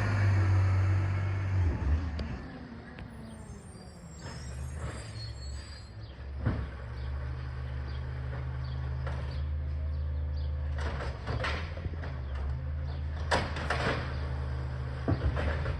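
Recycling truck's diesel engine running with a steady low rumble, with several sharp clanks and knocks, most of them in the second half.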